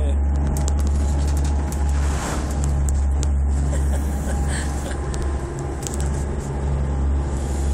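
A motor boat's engines droning steadily under way at sea, heard from inside the wheelhouse, with water rushing and splashing against the hull and spray ticking on the windows; a louder wash of spray about two seconds in.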